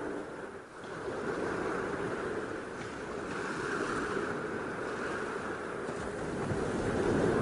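Ocean surf breaking on a sandy, rocky beach: a steady rushing wash of waves that grows louder near the end.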